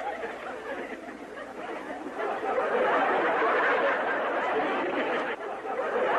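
Crowd of many people chattering at once, with scattered laughter; it gets louder about two seconds in.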